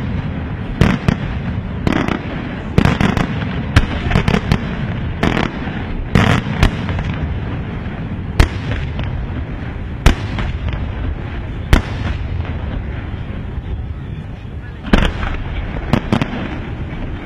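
Senatore Fireworks aerial shells bursting in a dense volley of booms and cracks over a steady low rumble. The bangs come about once a second at first, then thin to a few single sharp reports, and a new cluster of bangs arrives near the end.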